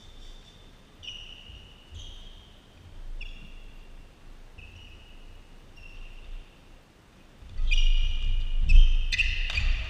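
Sneakers squeaking on a sports-hall court floor, short high squeaks about once a second. About seven and a half seconds in, a badminton rally starts: louder, quicker shoe squeaks, thudding footfalls and sharp racket strikes on the shuttlecock.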